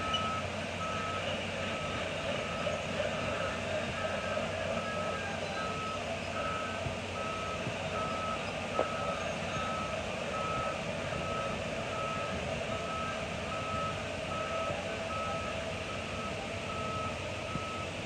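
Backup alarm on heavy machinery beeping at one steady pitch, about one and a half beeps a second, over a steady background rumble.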